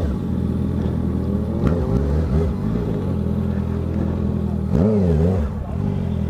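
Honda CB650F motorcycle's inline-four engine idling steadily, with the pitch swinging up and down briefly, once about two seconds in and again around five seconds in.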